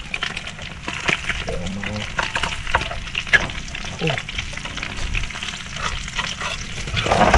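Food frying in hot oil in a pan, with a steady sizzle and many small irregular crackles and spatters.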